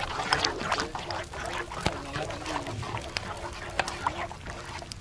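A metal spoon stirring thick egg batter in a metal bowl, with sharp clinks about once or twice a second. A wavering call repeats in the background.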